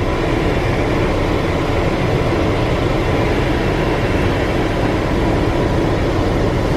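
Chevrolet Impala's HVAC blower fan running steadily, air rushing out of the dash vents, with the engine idling underneath. No popping or clicking from the newly replaced blend door actuator.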